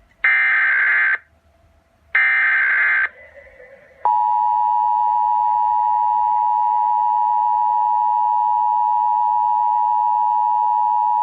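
Emergency Alert System broadcast: two harsh digital data bursts of about a second each, the SAME header that opens an alert, one at the start and one about two seconds in. Then, from about four seconds in, the steady two-tone EAS attention signal sounds without a break.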